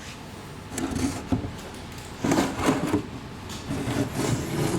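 Rubbing, scraping and a few light knocks from a fiberglass shaker hood piece being handled and turned over, with one sharper knock about a second in.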